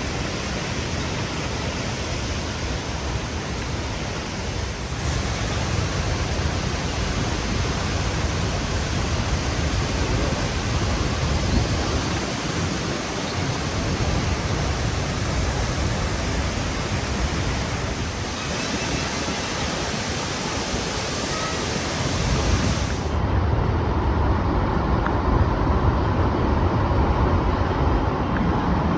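Waterfall pouring: a steady rushing roar of falling water. Its tone shifts abruptly a few times as the footage cuts between shots.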